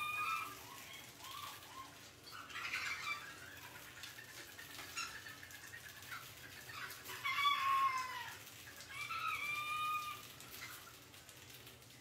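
Rats squealing: short, arched squeaks in several bouts, loudest at the start and again about seven to ten seconds in.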